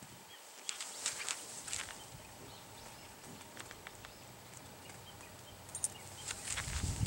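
A dog pawing and scratching at bare dirt: scattered short scrapes and scuffs, a cluster about a second in and more near the end, with a low rumble near the end.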